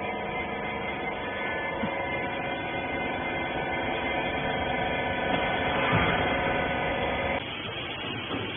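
Hydraulic rag baler's power unit, its electric motor and pump, humming steadily, then shutting off abruptly about seven seconds in.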